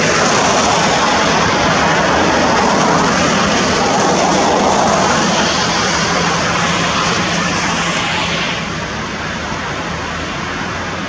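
Steady rushing noise of passing traffic, tyres hissing on a wet road, easing off a little about eight and a half seconds in.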